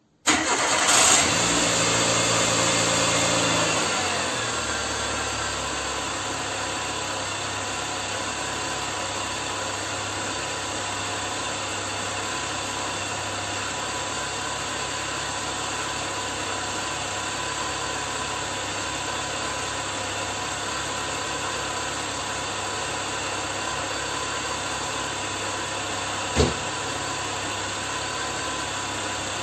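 Car engine starting and running at a raised fast idle for about four seconds, then dropping to a steady idle. A single short knock sounds near the end.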